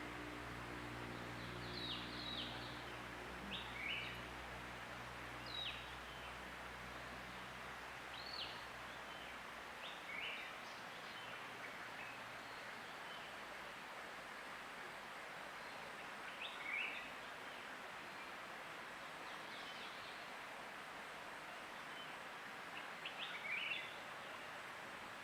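Steady flowing water, a stream or waterfall, with birds giving short calls every second or two, many of them quick downward-sliding notes. A low hum fades out about halfway through.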